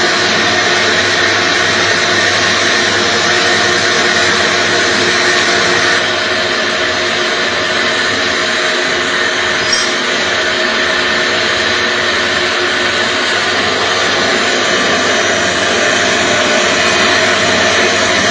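Lotus seed core-drilling machine running steadily: a dense, even mechanical noise with a few constant humming tones.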